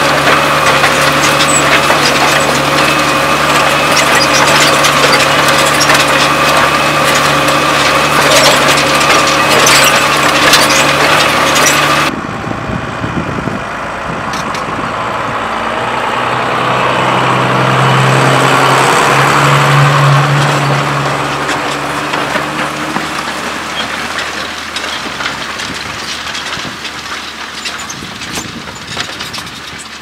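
New Holland TM130 tractor's diesel engine working hard under the load of a Kverneland reversible plough, a steady drone with a whine, with fine crackling and clicking from the plough and turning soil close by. About 12 seconds in, the sound cuts to the same tractor heard from afar: its engine swells, then fades away.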